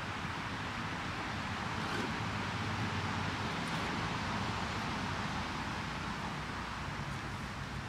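Axial SCX10 scale RC crawler's electric motor and geared drivetrain whirring steadily as the truck crawls over tree roots.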